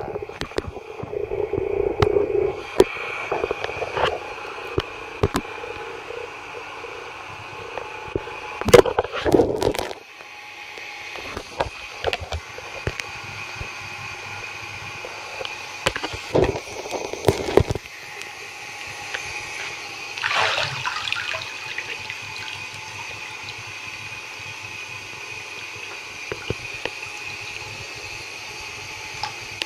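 Water running from a tap into a bathtub, a steady hiss, with splashing and sloshing as booted feet move in the water; the loudest splashes come about nine seconds in and again around seventeen and twenty-one seconds in.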